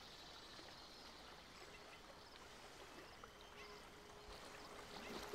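Quiet outdoor ambience: faint water movement and a soft hiss, with faint high bird chirps. A faint steady tone comes in about three seconds in.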